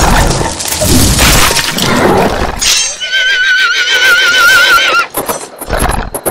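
A horse whinnying, one call of about two seconds with a wavering, trembling pitch, starting about three seconds in. It comes after a loud, dense clatter of crashing, breaking noise, and a few sharp knocks follow the call.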